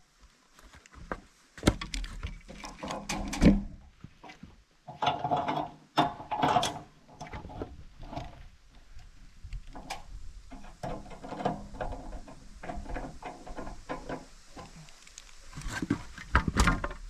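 Irregular metallic clicks, clanks and scrapes of hardware being handled and fitted while a log is set up on a chainsaw mill, with a few louder knocks.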